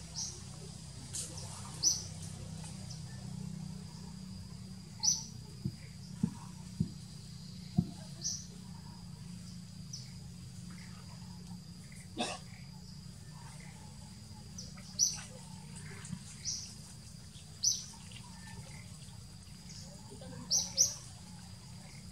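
A small bird chirping: about a dozen short, high chirps at irregular intervals, sometimes two in quick succession, over a steady low rumble, with a few sharp clicks between them.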